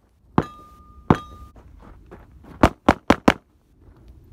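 Semi-automatic pistol shots: two single shots about two-thirds of a second apart, then a quick string of four shots at about five a second.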